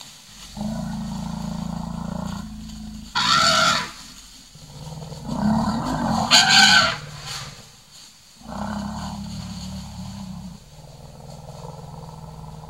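Deep, drawn-out growling rumbles, two of about two seconds each and a fainter one near the end, with two short, loud, shrill blasts between them, from forest elephants and a leopard confronting each other.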